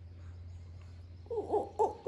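A few short, hooting coos in quick succession, bending in pitch, starting a little past halfway through, over a low steady hum.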